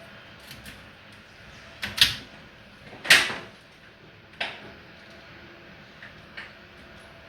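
A few separate sharp knocks and clunks, the loudest about two and three seconds in and another about four and a half seconds in, from washing-machine parts being handled and unscrewed during a repair.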